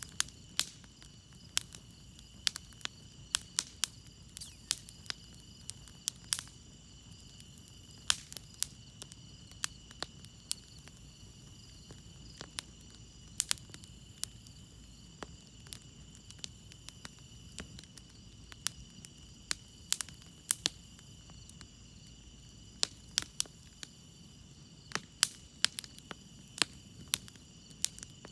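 Campfire crackling, with sharp irregular pops and snaps several times a second, over a low rumble. Crickets chirp steadily behind it in a continuous high trill.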